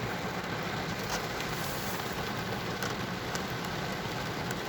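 Steady rain falling, an even hiss with a few sharp ticks of drops.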